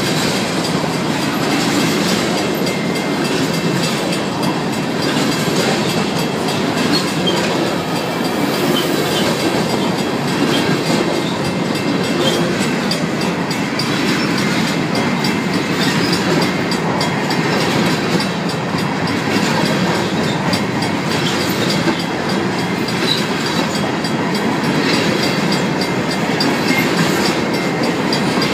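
Covered hopper cars of a Union Pacific grain train rolling steadily past, wheels clicking over the rail joints. The crossing's two mechanical bells ring steadily behind the train noise.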